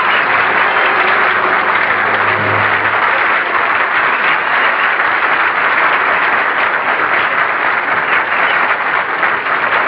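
Studio audience applauding after a song ends, with a low held note dying out about three seconds in.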